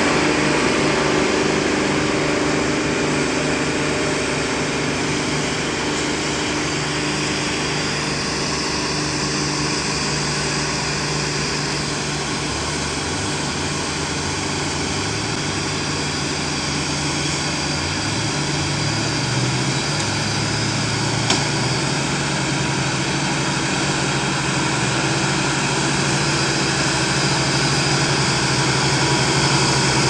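Heavy diesel engine of a log-laden logging truck running steadily. Its pitch shifts in the middle as the truck pulls away, and there is a single short click about 21 seconds in.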